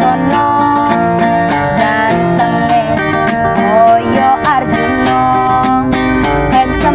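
A woman singing a Javanese pop song in a wavering, ornamented line over plucked guitar accompaniment.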